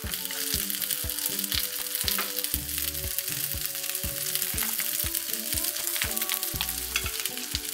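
Mushroom caps and egg sizzling and crackling as they fry in a nonstick frying pan. Background music with a steady beat plays underneath.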